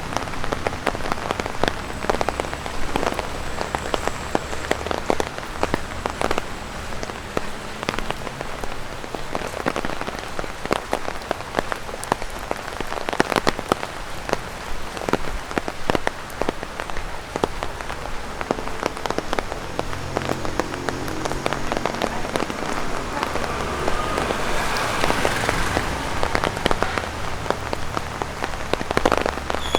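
Rain pattering on an umbrella overhead, with dense, irregular sharp taps of drops falling from tree leaves onto the umbrella's fabric.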